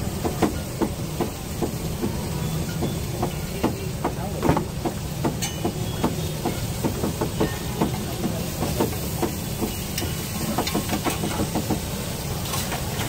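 Knife blade clicking and scraping against a flat steel griddle while a pizza base is cut into wedges: a run of short, irregular clicks over a steady low rumble and hiss.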